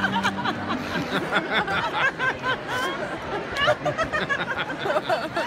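Crowd chatter: many voices talking over each other, with bits of laughter.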